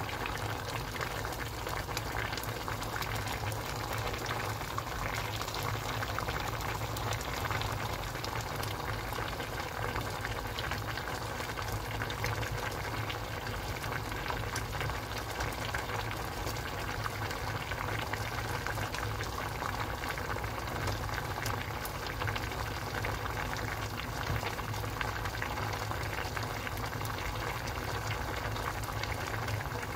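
Pork-belly kimchi stew bubbling at a steady boil in a small yellow pot, with a constant stream of small pops and gurgles from the thick broth.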